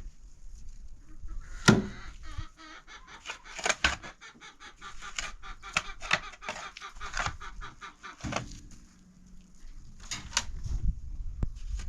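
Chickens clucking, mixed with scattered knocks and clicks; a sharp knock about two seconds in is the loudest sound.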